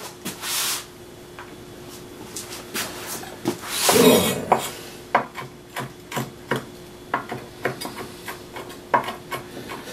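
Kitchen knife chopping rosemary leaves on a wooden cutting board: after some handling noise, short sharp knife strikes on the board set in about five seconds in, about two or three a second.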